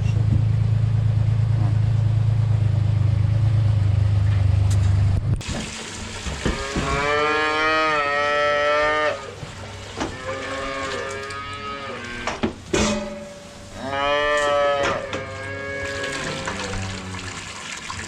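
A steady low hum for about five seconds, cutting off suddenly, then cattle mooing: about four long calls of two to three seconds each.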